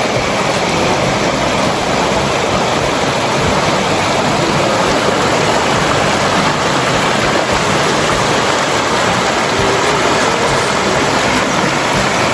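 Shallow river rapids rushing over rock slabs and boulders: a steady, loud rush of churning water.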